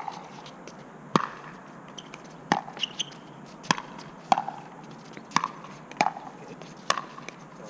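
A pickleball rally: solid paddles hitting a hollow plastic ball, about eight sharp pocks roughly a second apart.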